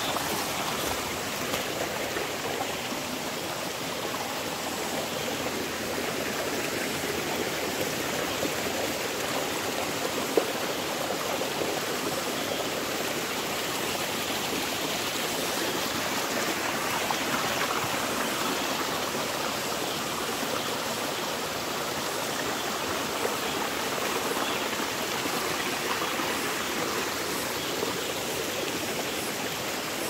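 Mountain stream running over rocks: a steady rushing of water. One sharp click about a third of the way through.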